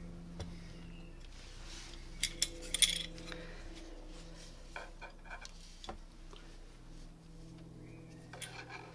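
Metal licence plate holder bracket and its fittings clinking and knocking as they are handled. A cluster of sharp clinks about two to three seconds in is the loudest part, with a few lighter knocks later, over a steady low hum.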